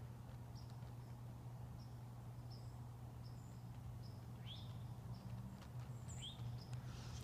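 Faint outdoor background: a steady low hum with short high-pitched chirps every half second or so, and two quick rising bird calls about four and a half and six seconds in.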